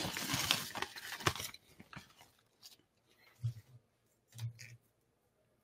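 Small clicks and scrapes of a capacitor being pulled out of a solderless breadboard and handled, with a soft hiss in the first second and a half, then a few faint low thuds.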